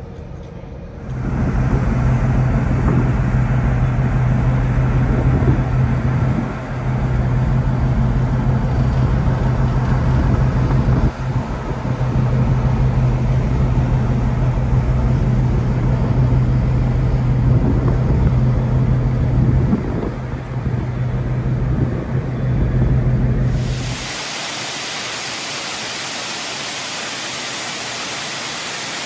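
Lake freighter's machinery heard on the open after deck: a steady low engine hum holding one pitch under a rush of wind. About four-fifths of the way through it cuts to an even hiss with no hum.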